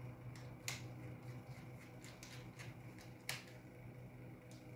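A handful of faint, sharp clicks, the loudest a little over three seconds in, from a small screw being driven with a precision screwdriver into the Anki Vector robot's plastic shell.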